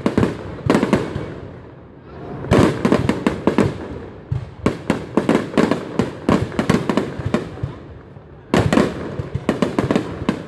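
Aerial fireworks bursting in rapid volleys of sharp, echoing bangs, with two short lulls, about two seconds in and about eight seconds in.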